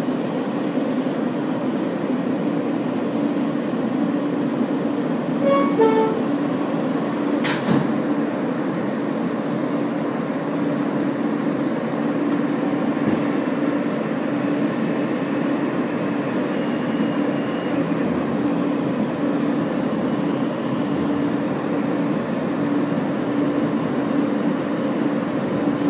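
An R160 subway train heard from inside the car as it pulls out of a station and runs on: a steady rumble of wheels on rail under a low, pulsing hum. There is a short falling run of tones about six seconds in and a sharp click near eight seconds.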